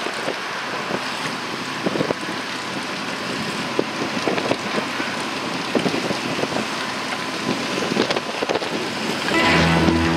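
Wind buffeting the microphone and choppy water rushing and slapping against a sailboat's hull, with irregular sharp splashes throughout. Music with a steady low pattern comes in near the end.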